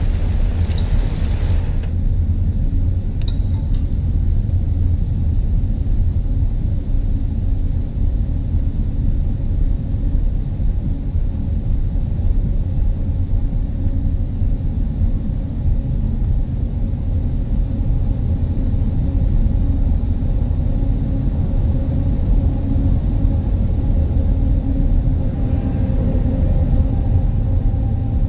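Steady deep rumble of motor traffic, road and engine noise with little high-pitched sound in it. A hiss over it cuts off suddenly about two seconds in, and a faint hum comes in near the end.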